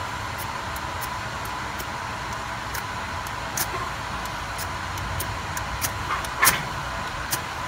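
Ferro rod struck with a steel striker to throw sparks onto a fire starter: a series of short, sharp scrapes at irregular intervals, the loudest about six and a half seconds in, over a steady background hum.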